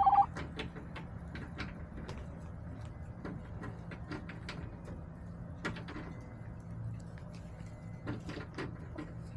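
Hens moving about inside a plastic chicken coop: scattered light taps and knocks over a steady low hum. The tail of a hen's pitched call sounds at the very start.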